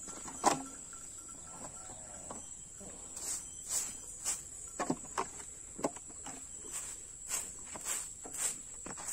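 Steady high-pitched drone of insects, with a brief louder clunk about half a second in. In the last few seconds there are short scraping strokes, about two a second, from a hand broom sweeping cow dung on a dirt floor.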